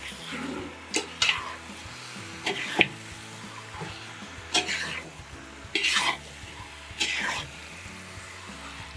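A spoon scraping and knocking against a metal pot as raw beef chunks are stirred into hot masala, in separate strokes every second or two, over a faint sizzle from the hot pan.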